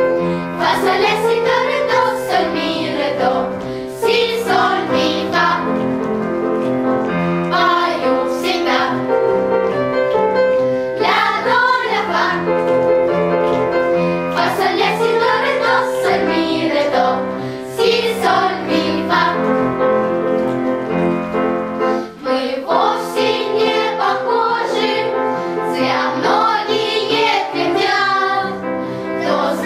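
Choral song with children's voices singing over a held instrumental accompaniment.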